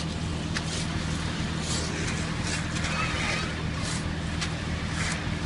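Concrete mixer truck's engine running steadily, a low hum throughout, with scattered scrapes of rakes and shovels working wet concrete.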